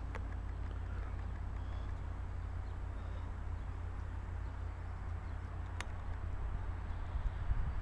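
Steady low outdoor rumble, with a single sharp click about six seconds in and a few low thumps near the end.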